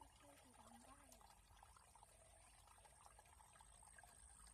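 Near silence: faint background hiss with a thin steady high whine, and a faint wavering voice-like sound in the first second.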